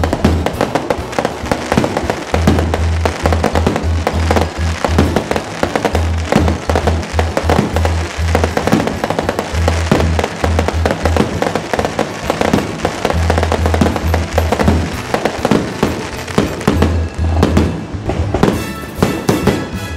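Aerial fireworks bursting, with many bangs and crackles in quick succession, over music with a pulsing bass.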